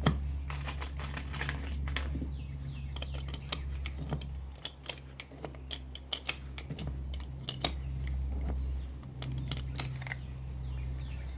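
Irregular small sharp clicks and clacks of hands handling a pistol, its magazine and cartridges, over a steady low hum.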